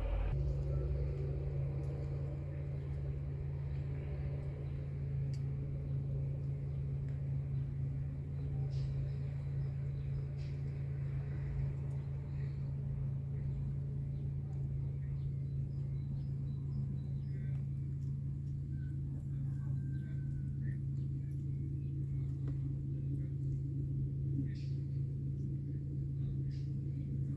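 A steady low hum, with faint scattered high chirps and clicks.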